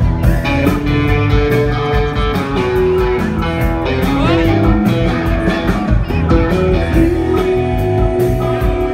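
Live rock band playing: guitar carrying held, stepping melody notes over keyboards and a steady drum-kit beat.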